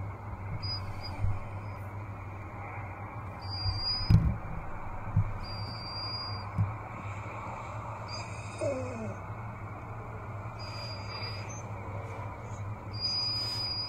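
Yellow Labrador retriever whining softly, with a falling whine past the middle, while it waits on its leash for a walk: anticipation whining. Heard played back through a speaker over a steady hum, with a few dull knocks a few seconds in.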